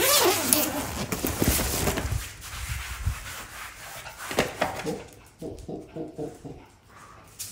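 Close-up rustling and handling of a fabric pet carrier as it is opened and a toy poodle is let out. About five seconds in comes a quick run of short pitched sounds from the dog.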